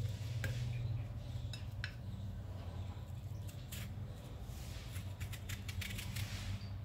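A kitchen knife slicing watermelon flesh from the rind over a ceramic plate: scattered small clicks and taps as the blade meets the rind and the plate, with a quick run of them near the end. A steady low hum runs underneath.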